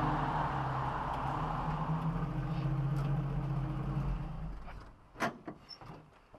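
A 1930s pre-war car's engine running steadily at idle, then dying away about four and a half seconds in, followed by a sharp knock and a few lighter clicks.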